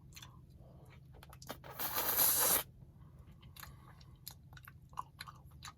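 A person eating a Dairy Queen Blizzard from a spoon: quiet chewing and small wet mouth clicks, with a brief louder rushing burst about two seconds in.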